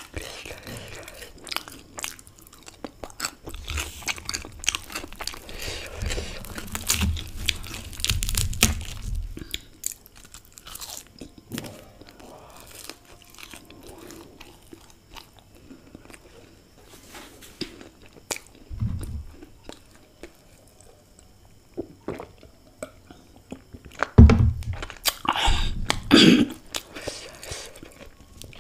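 Close-miked crunching and chewing of a fried samosa's crisp pastry shell: dense crackles and wet chewing. It is busiest in the first ten seconds and again near the end, quieter in between.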